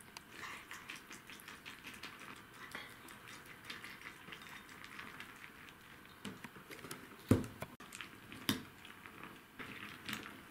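Snacks and their packaging being handled: light crackling and crinkling made of many small clicks, with a sharp knock about seven seconds in and a smaller one about a second later.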